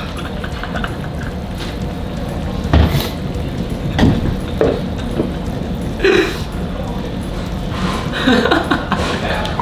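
Iced tea sipped through a straw and a glass knocked down onto the table, with liquid and dish sounds over a steady low hum. Short pained breaths and groans follow near the end, from the heat of an extremely spicy hot pot.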